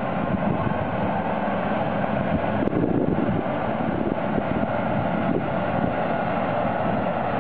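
A FAUN heavy-haul tractor unit's diesel engine running steadily as it tows a heavy multi-axle trailer at walking pace, with wind noise on the microphone.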